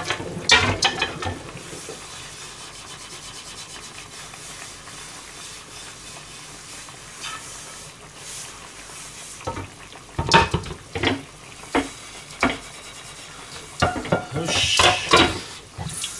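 Frying pan being scrubbed and washed in a stainless kitchen sink, with clattering knocks of the pan against the sink about a second in and again around ten to twelve seconds in. A short rush of tap water near the end.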